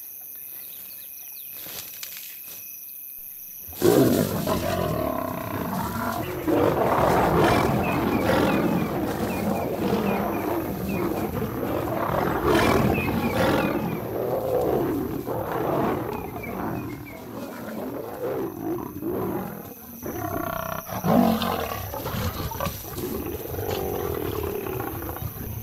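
Crickets chirping at night, then about four seconds in lions suddenly break into loud aggressive growls and roars that run on in surging peaks: a nomad male lion attacking lionesses, who fight back.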